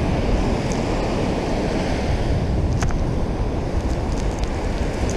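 Steady noise of breaking surf with wind rumbling on the microphone, and a few faint taps and clicks as a remora is pressed against the camera housing.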